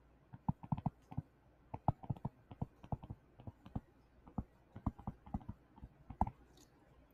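A stylus tapping and clicking on a tablet screen during handwriting: irregular light taps, several a second, as each stroke starts and ends.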